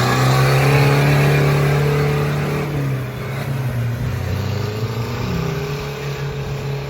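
4x4 engine running hard at high revs, holding a steady note, then easing off about three seconds in; a second engine note rises near the end.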